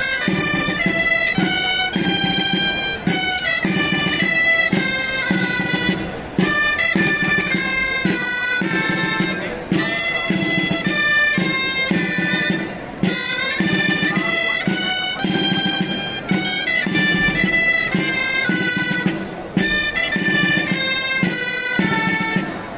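Catalan gralles, loud double-reed shawms, playing a festive tune in phrases with short pauses between them.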